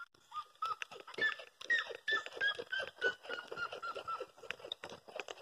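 A bird calling over and over: short calls, each bending up and then down, about two to three a second, starting about a second in and fading out near the end, with scattered light clicks behind.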